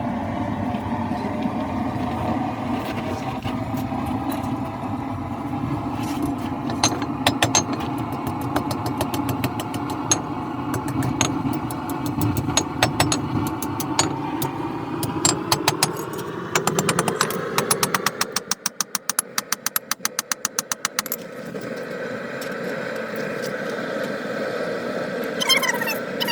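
Propane forge burner running with a steady roar, and from several seconds in, runs of fast hammer blows ringing on the work. The low rumble of the burner fades for a few seconds near the end while the strikes come quickly.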